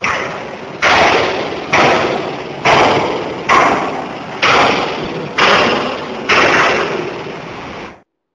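Eight heavy thumps in a steady rhythm, about one a second, each followed by a rush of noise that fades before the next. The sound cuts off suddenly near the end.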